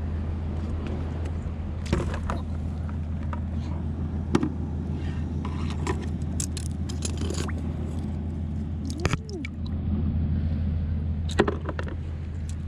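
Steady low rumble of wind and surf on a stormy shore, with scattered sharp clicks and scrapes of stones and shells being handled.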